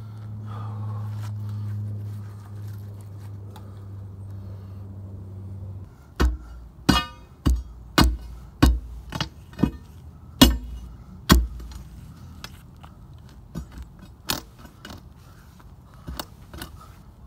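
A steel pry bar striking a stuck concrete septic tank lid: about nine sharp metallic clanks, roughly two a second, starting some six seconds in, some of them ringing, then a few lighter knocks. Before the strikes a steady low hum runs and then stops.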